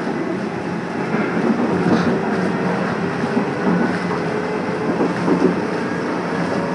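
Electric commuter train running at speed, heard from inside the carriage: a steady rumble of wheels on rail with a low steady hum underneath.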